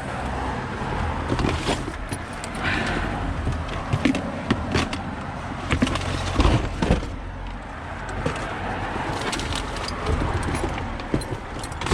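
Scattered clicks, knocks and rattles of parts and tools being handled while searching through a work van, over a steady low vehicle hum.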